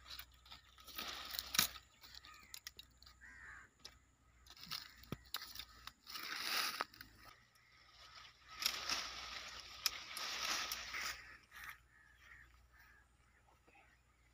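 Leafy guava branches rustling and crackling as they are handled, in three bursts of a second or two, with scattered small clicks and snaps between.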